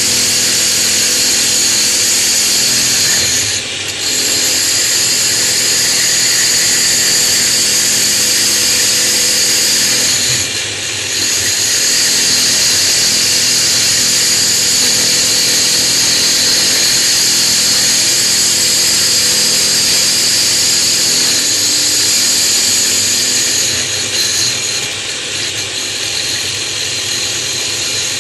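Electric router running steadily with a high whine, its bit milling the face of a natural stone tile down on the last pass to thickness. The sound drops briefly about four and eleven seconds in and wavers near the end as the cut lightens.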